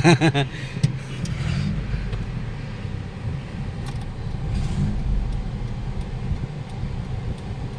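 2018 Hyundai Accent 1.4's engine and road rumble as the car is driven on a road test. The engine runs steadily, its misfire and hunting idle cured by a new ignition coil, new spark plugs and a cleaned throttle body.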